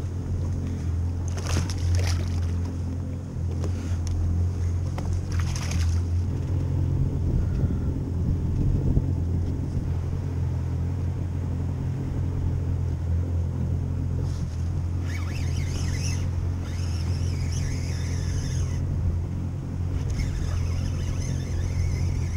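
Boat engine idling with a steady low hum, the Yamaha 190 FSH's inboard engine, as the boat sits in the water; a few sharp handling clicks come in the first several seconds.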